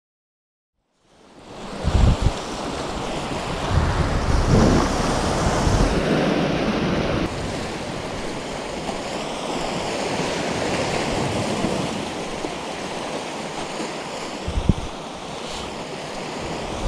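Sea surf washing with wind blowing across the microphone, coming in about a second in, swelling and easing, with a few low buffets from gusts.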